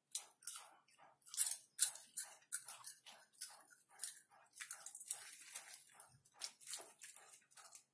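Close-miked chewing of caramel popcorn: a quick run of dry crunches, about two or three a second, uneven in strength.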